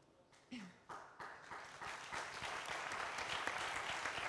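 Audience applause: a few scattered claps start about half a second in and build into steady applause from the whole crowd within a couple of seconds.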